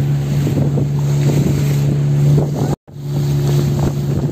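Engine of a small wooden motorboat running steadily at an even pitch, with water rushing along the hull and wind on the microphone. The sound drops out for a moment a little under three seconds in.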